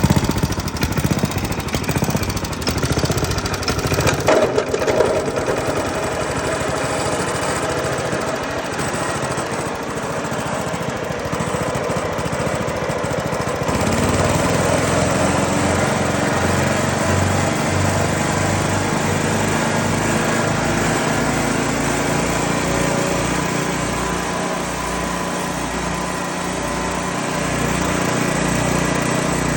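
Briggs & Stratton 5-horsepower single-cylinder engine running a Bearcat 50 wood chipper while the belt drive to the chipper drum is engaged slowly at idle, which spares the belts from burning on the pulleys. About halfway through, the engine sound changes and gets a little louder.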